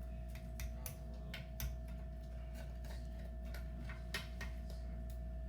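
Scattered light clicks and taps of a utensil against a pizza pan, irregularly spaced, over a steady low hum.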